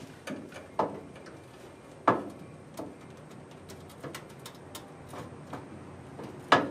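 Irregular light knocks and clicks from a Toyota accelerator pedal on a steel test bracket as it is pressed and handled, with one sharper knock about two seconds in and a quick double knock near the end.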